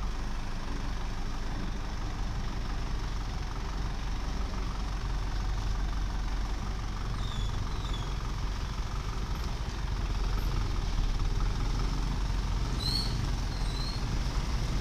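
Light truck's engine running steadily at low speed as the truck creeps forward close by, a little louder about ten seconds in. A few short high chirps sound over it near the middle and near the end.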